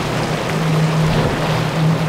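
Twin Mercury 400 outboard engines on an Axopar cabin boat running at speed, a steady engine drone over the hiss of the hull and spray through choppy water.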